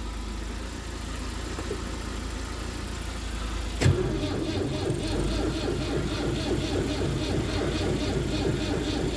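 Old tractor being started on a jump start: a steady engine hum, then a sharp click about four seconds in as the starter engages, and the engine turning over with a rhythmic churn, about four beats a second.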